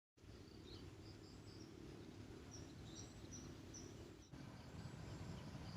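Faint outdoor ambience: a low rumble with short, repeated high chirps from small creatures, and a brief dip about four seconds in.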